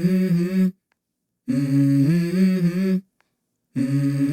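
Background music: a wordless hummed vocal line in three short phrases, stepping between notes, with brief silent breaks between the phrases.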